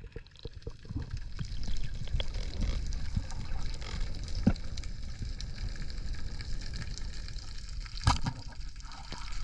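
Water moving around the microphone in the sea: a steady low rush with scattered small clicks, a sharp click about four and a half seconds in and a louder one about eight seconds in.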